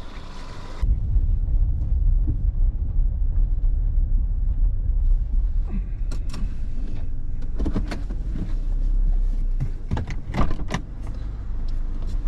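Car door shutting about a second in, then a steady low rumble inside the car cabin. A run of sharp clicks and knocks follows from about six seconds in, the sound of handling inside the car.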